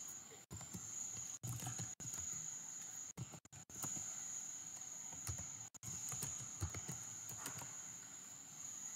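Faint computer-keyboard typing: irregular scattered key clicks, over a steady high-pitched whine.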